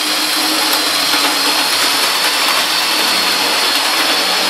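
Small electric motor of a 00 gauge model locomotive running on the layout: a steady whir with a thin high whine.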